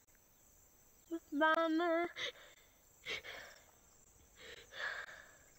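A person sobbing: a wavering, wailing cry about a second in, lasting about a second, then short breathy gasping sobs.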